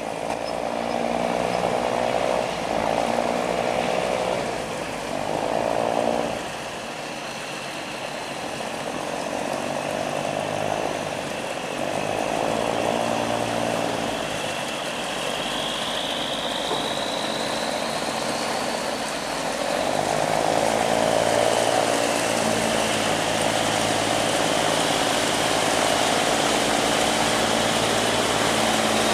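Barge engine running loud and steady, with a high whine above it. It grows louder about two-thirds of the way in.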